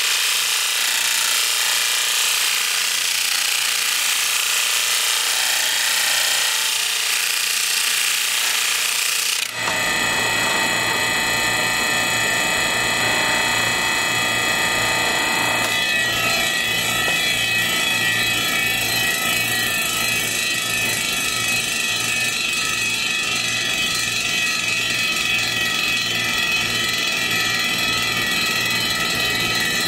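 Kalamazoo DS10 10-inch disc sander grinding a rusty steel bar held against its abrasive disc: a strong, steady hiss for about the first nine seconds. The sanding then stops abruptly, and the sander's Baldor electric motor runs on free with a steady hum and whine.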